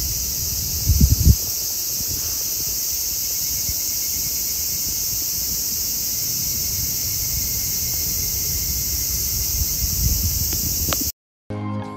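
Cicadas singing in a steady, high-pitched chorus, among them a higurashi (evening cicada). A few low thumps about a second in, and the chorus cuts off abruptly just before the end, giving way to music.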